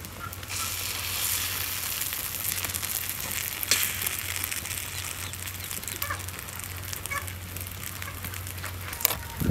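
Egg-and-bread omelette frying in oil in a pan: a steady sizzle with scattered small crackles, growing louder about half a second in.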